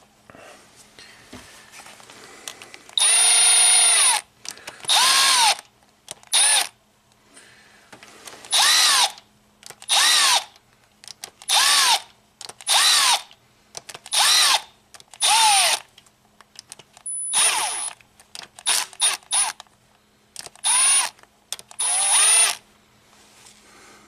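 Milwaukee FUEL cordless ratchet spinning out the camshaft bearing-cap bolts on a Toyota 1MZ-FE V6 head. It runs in about a dozen short bursts, each whirring up in pitch and winding back down.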